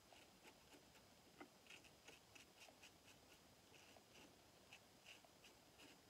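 Shlyuz double-edge safety razor, its blade raised on a shim spacer, scraping through lathered stubble in faint short strokes, several a second.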